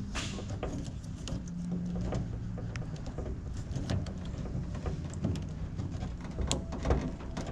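Scattered clicks and knocks from hands unplugging the rear wiper motor's electrical connector and handling the plastic parts around it, over a low steady hum.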